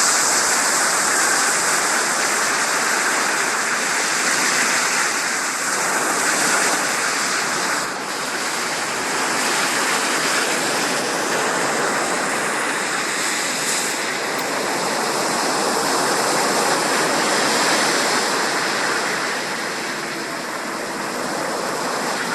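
Steady rushing water, an even, continuous wash of noise with no distinct splashes.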